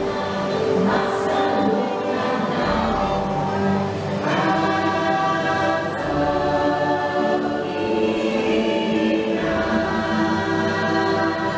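Choral music: a choir singing long held chords that change every couple of seconds.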